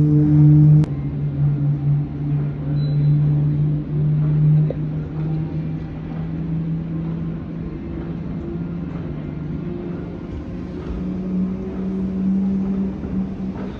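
A vehicle's engine running steadily with a low hum that slowly rises in pitch toward the end.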